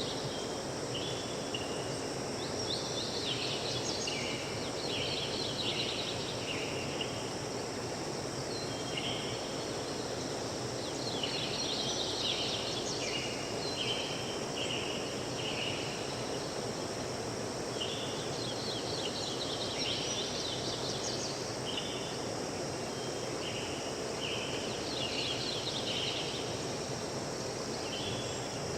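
Forest ambience: a steady rushing background noise, with a bird singing bursts of short, high chirping notes that recur every few seconds.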